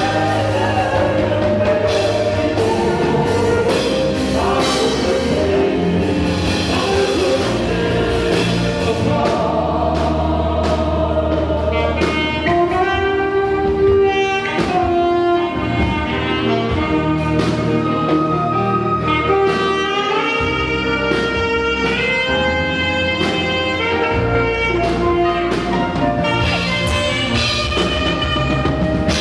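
Live African high-praise gospel music with a saxophone playing the lead over bass and drums.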